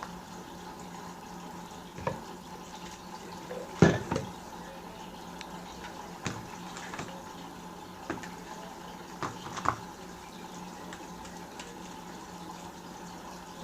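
Slime being mixed by hand: scattered short wet squelches and taps, the loudest about four seconds in and again near the end, over a steady hum.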